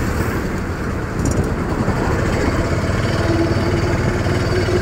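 Auto-rickshaw engine running steadily, a dense low rumble with fast, even pulsing.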